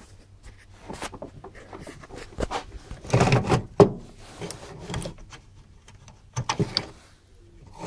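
A plug-in circuit card being slid out of an instrument rack: irregular scraping and clicks as the board rubs and knocks along its guides, loudest about three seconds in, with a second run of clicks near the end.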